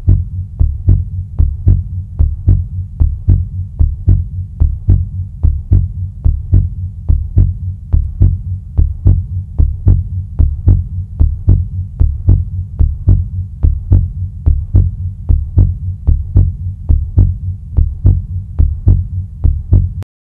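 Heartbeat sound effect: a steady, even rhythm of deep thumps that cuts off suddenly near the end.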